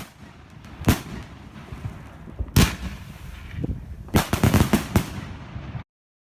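Fireworks going off: a sharp bang about a second in, another a couple of seconds later, then a rapid run of about six bangs, all over a continuous hissing crackle. The sound cuts off abruptly just before the end.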